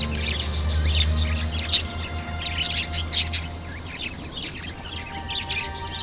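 Budgerigars chattering: a run of quick, high chirps and warbles, with the sharpest chirps around the middle, over a low steady hum that fades about four seconds in.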